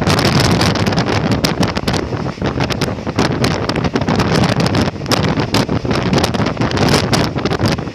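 Loud, gusty wind buffeting the microphone from a moving train, over the train's running rumble.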